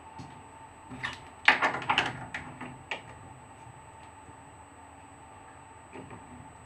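A cluster of sharp clacks and knocks, with a wooden workpiece knocking against the steel machine vise of a milling machine as it is set in and clamped. The knocks bunch up about one to three seconds in, and a few softer clicks come near the end. A faint steady tone hums underneath.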